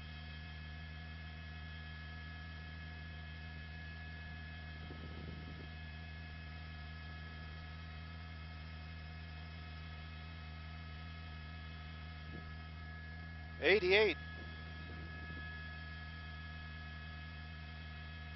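Steady electrical hum with several fixed tones on a helicopter's intercom/radio audio feed. About three-quarters of the way through, a brief word comes over the radio.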